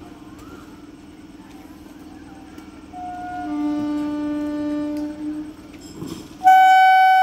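Electric MEMU train's horn sounding as it pulls out: a softer blast about three seconds in, lasting a couple of seconds, then a much louder, steady single-pitched blast near the end that carries on.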